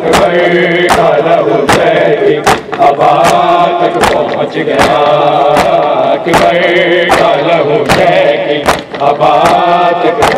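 A crowd of men chanting a mourning chant in unison, with sharp, even strikes of hands on chests (matam) about every three-quarters of a second keeping the beat.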